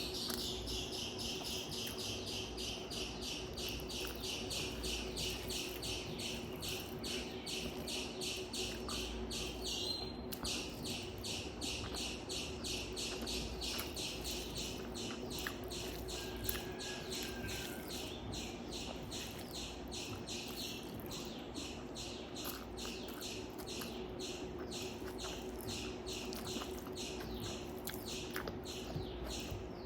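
Steady, rhythmic high-pitched chirping, about four short pulses a second without a break, over a faint steady hum.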